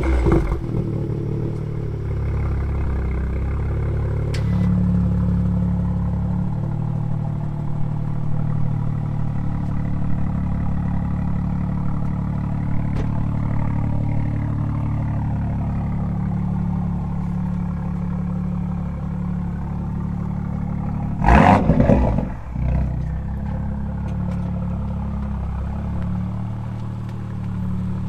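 A car engine idling steadily. A short, loud burst of noise comes right at the start and again about 21 seconds in.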